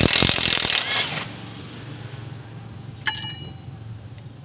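Impact wrench hammering, stopping about a second in. About three seconds in, a metal tool or part clinks once and rings briefly.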